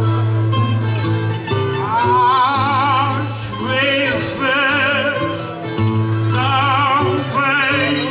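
Portuguese traditional sung duel (cantoria ao desafio): a small ensemble of plucked guitars plays a steady accompaniment, and about two seconds in a man's voice comes in singing an improvised verse in long phrases with heavy vibrato.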